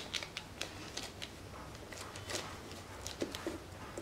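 Faint, irregular crinkling and light crackling of a polythene sheet as fingers press and shape a thin disc of sesame brittle on it.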